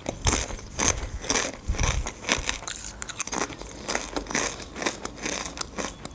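Close-miked crunching and chewing of Doritos corn tortilla chips: a run of crisp crunches, about two a second.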